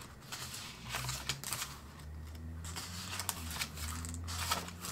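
Pages of a paper sketchbook being turned and smoothed flat by hand: several brief dry paper rustles and brushes, over a faint low hum.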